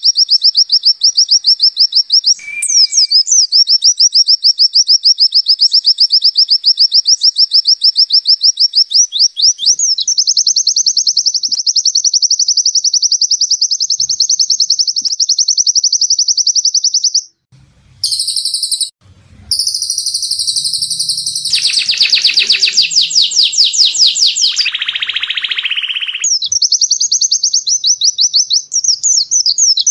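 White-eye (pleci) singing a fast, evenly repeated high trill, the rattling 'zipper' song used in masteran recordings. In the middle the song cuts off abruptly a few times and a different, busier passage of birdsong runs for several seconds before the trill resumes.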